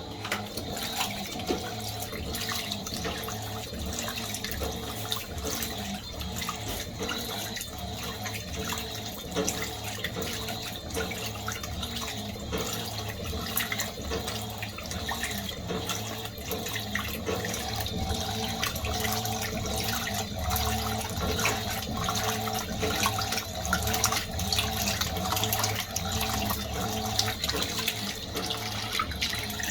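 Fisher & Paykel MW511 washing machine filling: water running into the tub, starting right at the beginning, with a low steady hum underneath.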